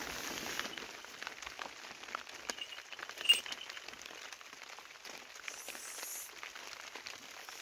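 Cloth bedding rustling around a wooden baby cradle, with many light ticks and one sharp clink about three seconds in.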